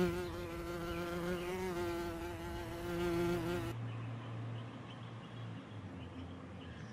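A steady, pitched buzz that wavers slightly, for the first three and a half seconds. After a cut comes a fainter low hum.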